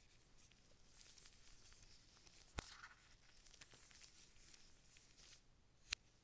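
Faint rustling and crinkling of packaging being handled during an unboxing, with a sharp click about two and a half seconds in and another near the end.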